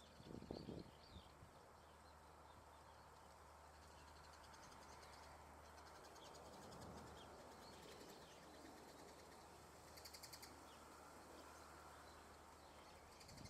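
Near silence outdoors with faint, scattered high chirps of small birds and two brief rapid buzzy trills, one about midway and one near the end, over a low steady hum; a short low thump comes just after the start.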